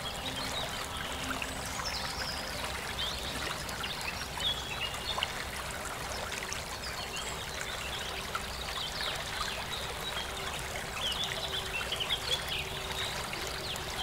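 Running water trickling and splashing steadily, with many quick high chirps over it, like small birds calling.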